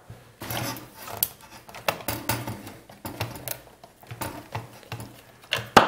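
Flathead screwdriver working tight screws out of a Black+Decker hedge trimmer's plastic housing: irregular clicks, scrapes and knocks of the tool and the plastic shell being handled, with one sharp knock near the end.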